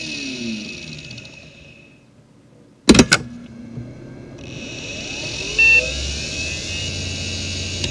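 A 1999 Samsung Voyager 6 SV0844A 5400 rpm hard drive spinning down, its whine falling in pitch and fading almost to nothing. About three seconds in there is a sharp click, then the drive spins up again with a rising whine, and its high bearing whine returns. A short beep sounds about two-thirds of the way through.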